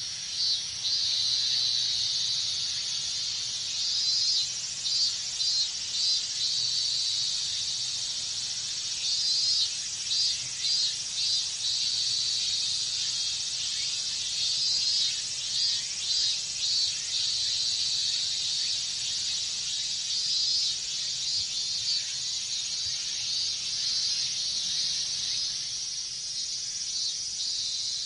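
Chorus of cicadas: a steady high-pitched drone, with robust cicadas (minmin-zemi) breaking in every few seconds with runs of quick pulsed 'min-min-min' calls.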